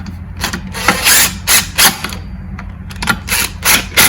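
Screws being tightened to fasten the replacement pull-start assembly on a Stihl FS55R string trimmer: a run of short, sharp clicking and rasping strokes, one every third of a second or so, in two clusters with a pause between them.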